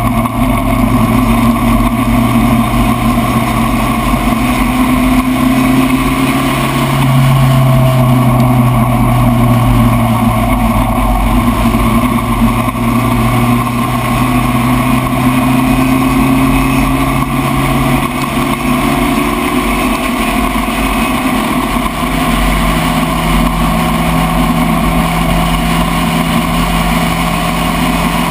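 Spec Racer Ford race car engine running hard through the lap. Its note steps up and slides back down in pitch around a third of the way in, then shifts again to a higher steady note about two-thirds through, over a constant low rumble.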